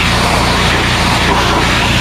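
Pressure washer running steadily: a low drone under the constant hiss of the spray.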